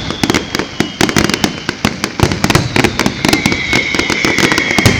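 Fireworks display going off in a dense run of rapid crackling bangs, with high whistling tones over them, a steady one starting about three seconds in.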